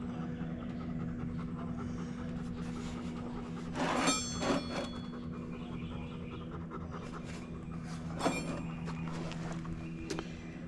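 A Weimaraner panting close by, over a steady low hum, with a couple of sharp clatters about four seconds in and another a little past eight seconds.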